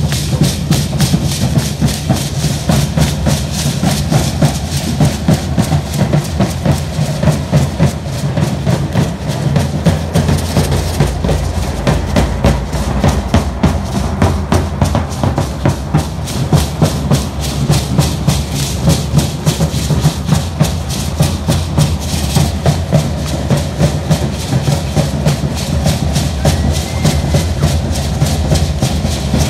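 Matlachines dance percussion: large drums and the dancers' hand rattles beating a fast, steady rhythm of several strokes a second.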